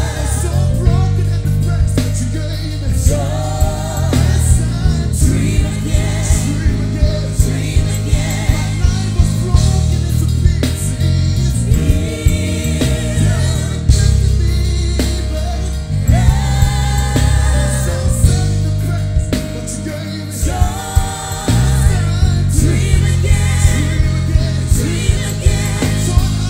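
Live gospel band playing: singing voices over a drum kit and bass guitar, with regular drum hits through most of the passage.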